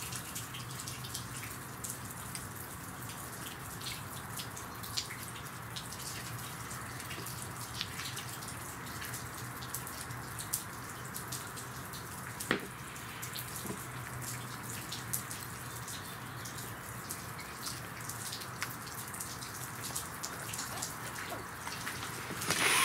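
Quiet steady background hiss with a low hum and faint scattered ticks. There is one sharper knock about halfway through and a brief hiss at the very end.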